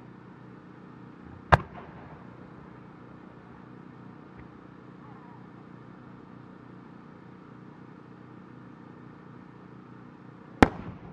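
A large Japanese aerial firework shell: a sharp bang about a second and a half in as it is fired from its mortar, then near the end a louder bang as it bursts overhead, with a short echo trailing off.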